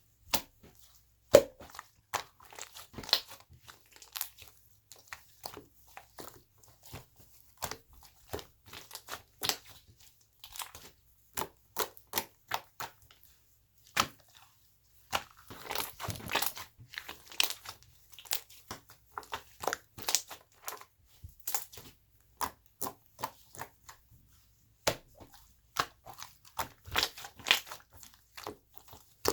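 Chocolate banana cake slime being pressed and stretched by hand, giving irregular crisp pops and crackles, with a denser run of crackling about halfway through.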